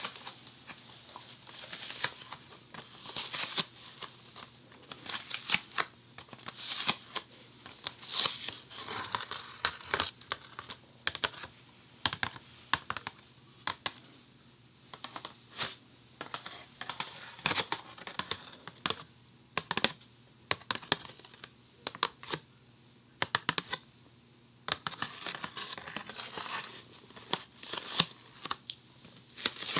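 Funny Foam packaging being unwrapped and handled close to a binaural dummy-head microphone: plastic crinkling and tearing, with many sharp taps and clicks.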